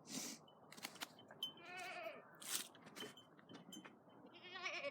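Kiko goats bleating, two short quavering calls: one about two seconds in and one near the end. Sharp clicks and brief rustling noises fall between them.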